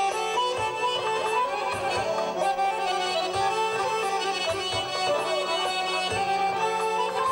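Two garmons, Azerbaijani button accordions, playing a traditional melody together in steady held reedy notes, with low thumps marking the beat.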